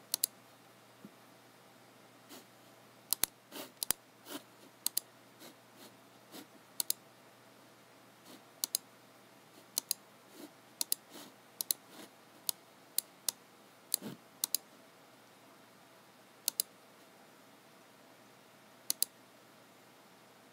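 Computer mouse button clicking at irregular intervals, the sharp clicks often in quick pairs, with softer, duller taps in between.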